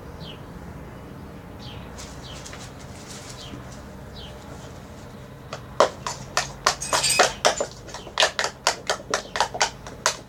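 A few faint bird chirps, each a short falling note. From about halfway, a quick irregular run of loud clicks and clacks, about three a second, with a brief hiss in the middle.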